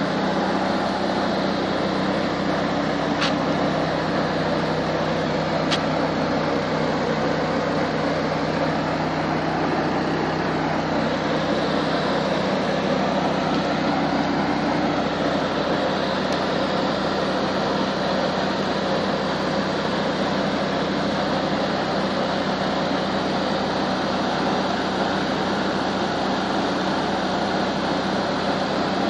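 Motorized pesticide spray pump running steadily, a constant hum over a broad hiss, feeding the long spray hose.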